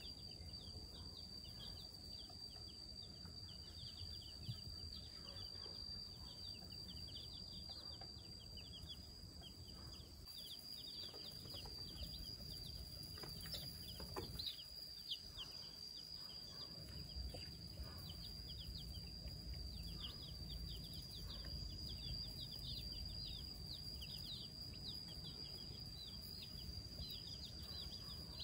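A brood of young chicken chicks peeping, many short, high, falling peeps overlapping without pause, over a low background rumble and a steady faint high-pitched tone.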